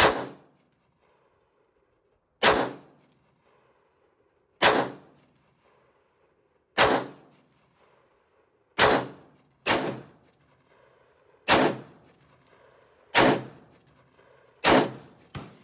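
AR-15 pistol firing single semi-automatic shots, roughly one every two seconds. Each crack trails off in a short echo. Two fainter bangs fall between them.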